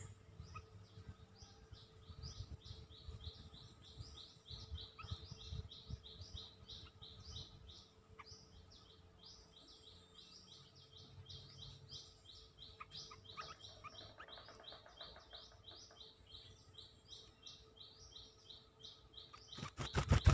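Bulbuls chirping in a fast, steady run of faint high chirps, about five a second, the sound of a wild flock answering a caged decoy bird. Near the end comes a sudden loud flutter of wings as a bird flies right up close.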